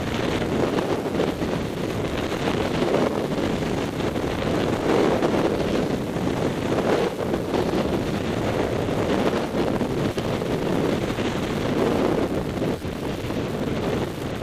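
Wind rushing over a helmet-mounted camera's microphone while snowboarding downhill, mixed with the snowboard scraping over chopped-up snow; a steady, rough rush that wavers in loudness.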